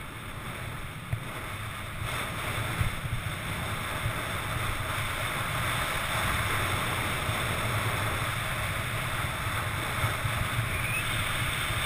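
Skis sliding and carving over packed, chopped-up snow: a steady scraping hiss that grows louder about two seconds in, under a low rumble of wind buffeting the camera's microphone.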